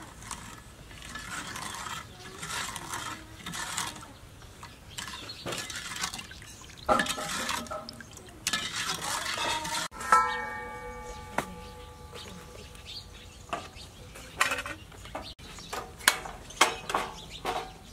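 A metal ladle stirring and scooping coconut milk in a stainless steel pot, with soft sloshing and scraping. About ten seconds in the ladle knocks the pot, which rings for a few seconds. Near the end come a run of sharp clicks from the igniter of a portable butane gas stove.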